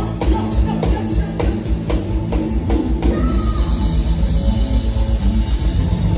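Forró band playing live without vocals: drum kit and bass driving a fast, steady beat.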